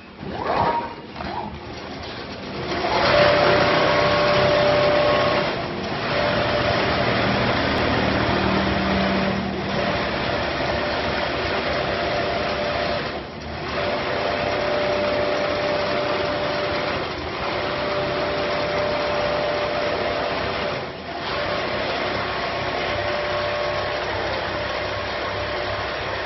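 Industrial computerized single-needle quilting machine running and stitching through a thick quilt: a steady mechanical whirr with a held whining tone. It grows louder about three seconds in, then dips briefly about five times, every three to four seconds.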